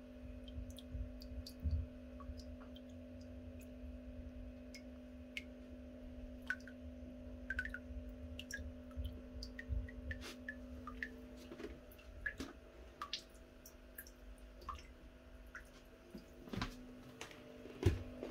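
Water dripping and small scattered clicks as aquarium containers and plants are handled, over a steady electrical hum that drops away about twelve seconds in. A couple of louder knocks come near the end.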